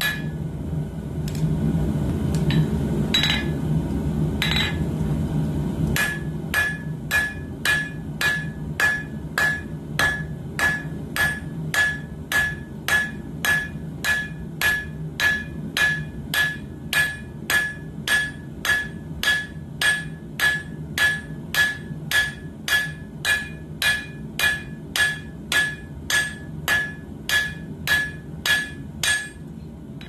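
Hand hammer forging red-hot coil-spring steel on an anvil into a knife blade. A few blows are followed by a lull of several seconds with two single strikes, then a steady run of blows about two a second, each with a ringing tone, ending shortly before the close. A steady low rumble runs underneath.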